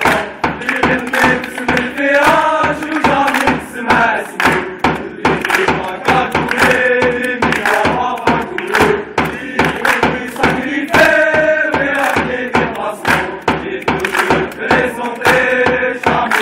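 A group of football ultras chanting a song in unison, with rhythmic hand clapping and drum beats keeping time.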